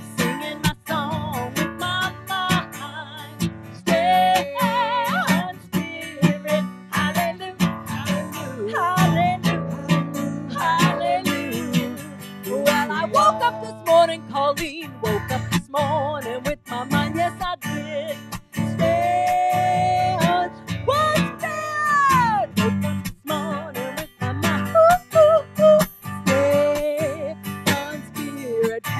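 Acoustic guitar strummed as accompaniment to a woman singing, her voice holding long notes and sliding between pitches, with one long held note about two-thirds of the way through that then falls away.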